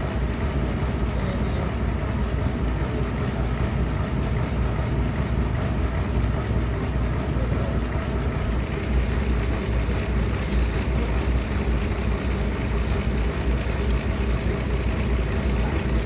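Sawmill bandsaw machinery running steadily: a continuous low drone with no pauses.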